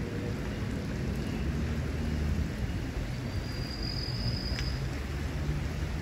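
Steady low rushing of a fast-flowing creek, swollen after heavy rain, mixed with wind rumble on the microphone. About three seconds in, a thin high whistle-like tone sounds for about a second and a half.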